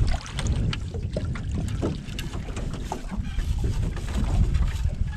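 Wind buffeting a GoPro's microphone in a steady low rumble, with scattered knocks and clatters as a landing net holding a channel catfish is hauled out of the water into the boat.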